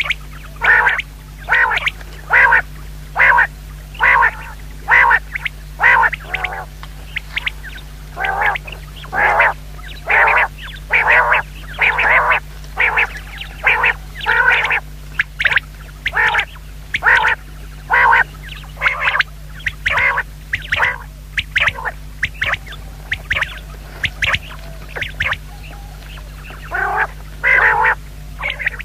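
Female common quail calling: short, quacking notes repeated about twice a second in runs with brief pauses, over a steady low hum.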